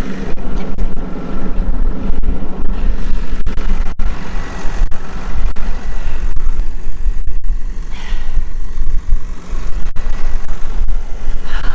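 Versatile 150 tractor's engine running steadily with a deep rumble.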